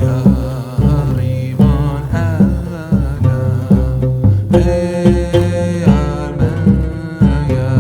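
Background music with a steady beat and string instruments.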